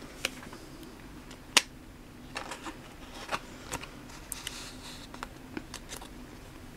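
Pokémon trading cards handled by hand: scattered light clicks and taps of card stock, with a brief rustle about four and a half seconds in.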